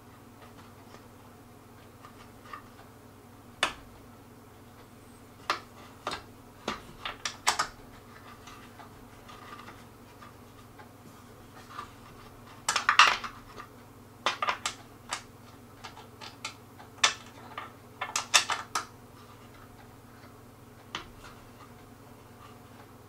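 Light metallic clicks and clinks in irregular clusters, from a hand tool working the screws that hold a wooden table's legs while they are tightened.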